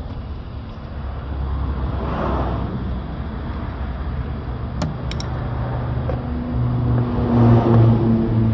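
Motor vehicles passing: one swells up and fades about two seconds in, and another with a low engine hum builds to the loudest point near the end. A few light clicks come about five seconds in.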